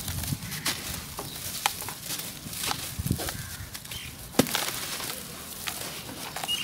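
Dried dirt paste being crumbled by hand over a wet metal basin: irregular crunchy crackles and patters of crumbs falling, with one sharper crack about four and a half seconds in.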